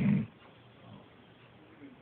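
A small pet snoring in its sleep: one loud low snore dies away in the first quarter second, followed by a quiet pause between breaths.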